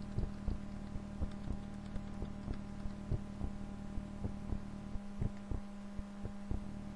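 Steady electrical hum under soft, quick taps about three a second: arrow keys tapped on a computer keyboard, nudging a selected object on screen.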